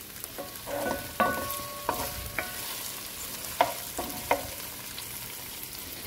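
Food frying in oil in a pot, a light steady sizzle, while a utensil stirs and knocks against the pot several times. Each knock rings briefly.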